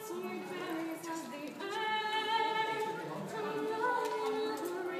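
A woman singing unaccompanied, a slow melody of long held notes.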